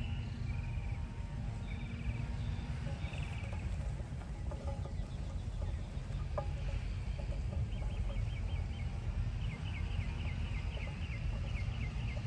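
Birds chirping in the background: a few short calls early on, then a quick run of short descending chirps from about eight seconds in, over a steady low rumble.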